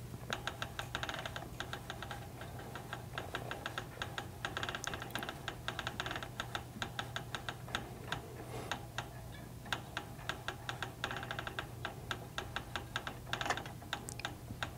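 Rapid light clicking, several ticks a second and uneven in pace, as a fishing rod blank is turned by hand in a rod wrapper's supports, winding thread over a guide foot. Under it runs a faint steady low hum.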